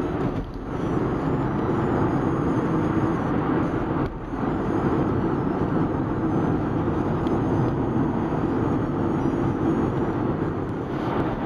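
Steady engine and tyre noise of a car driving along a road, heard from inside the car, with two brief drops about half a second in and about four seconds in.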